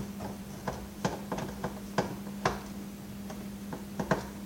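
Irregular sharp clicks and taps of a hand screwdriver working screws out of a plastic vacuum cleaner housing and the plastic parts being handled, a few clicks louder than the rest. A steady low hum runs underneath.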